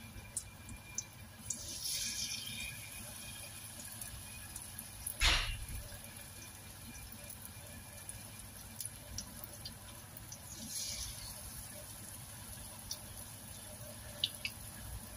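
Battered tofu frying in hot oil in a wok: a soft sizzle with scattered crackles and pops. The hissing swells about two seconds in and again near the eleven-second mark, and there is one louder pop about five seconds in.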